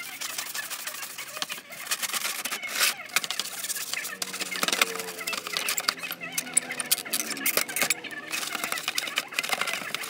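A scouring sponge scrubbed back and forth over a plastic refrigerator liner: a continuous rasping scrub of quick, uneven strokes. Poultry call faintly in the background now and then.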